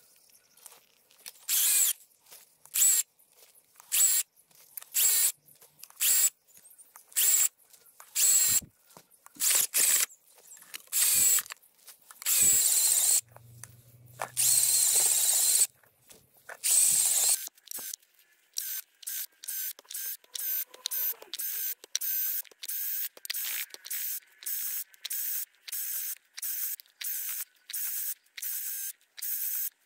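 Cordless drill spinning a homemade earth auger, a 125 mm diamond grinding wheel on a 12 mm steel bar, through soil in repeated short bursts. The bursts are longer and louder in the first half, then shorter and quicker, about one and a half a second, from a little past halfway.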